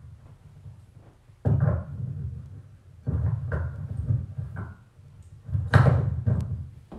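Several dull knocks and bumps, each starting suddenly with a low rumble and fading over about a second; the loudest comes near the end.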